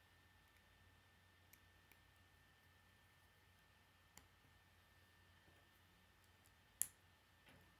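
K'nex plastic rods and connectors clicking as they are snapped together by hand. A handful of faint, sparse clicks, the sharpest about seven seconds in, over a faint steady hum.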